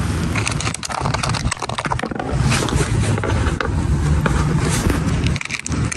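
Handling noise from the camera being moved: its microphone rubbing and scraping against clothing, with many small knocks and a rough rumble.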